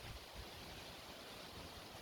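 Faint steady background hiss with no distinct sound.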